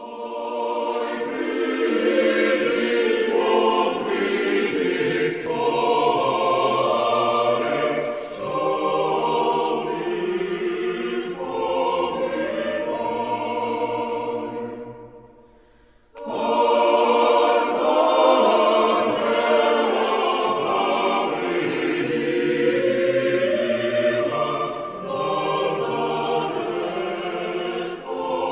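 Choir singing as background music, fading out about halfway through and starting again a second later.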